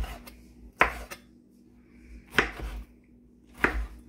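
Chef's knife cubing tomato on a bamboo cutting board: four sharp knocks of the blade striking the board, about one to one and a half seconds apart.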